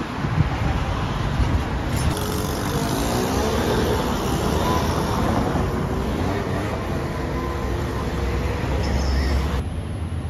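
Road traffic passing close by: a steady rumble of vehicle engines and tyres, with one engine's pitch bending as it goes by in the middle.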